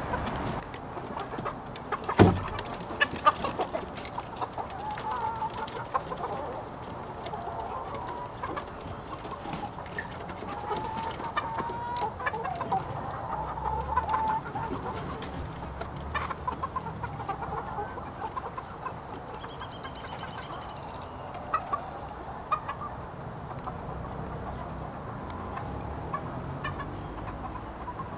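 A flock of backyard chickens clucking and calling as they forage, with one sharp knock about two seconds in and scattered clicks after it. A brief high whistled call comes about twenty seconds in.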